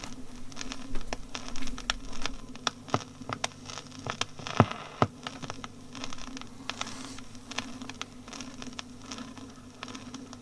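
A bus engine idling at a stop, a steady low hum, with scattered light clicks and knocks throughout and a couple of sharper knocks about halfway through.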